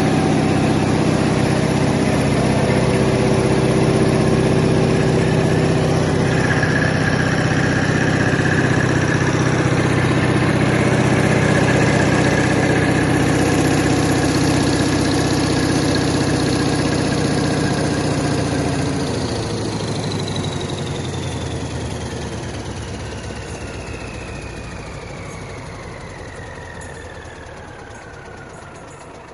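Caterpillar 3508 V8 diesel generator set running steadily, then shut down about two-thirds of the way in. After that a whine slides down in pitch and the sound fades as the machine spins down.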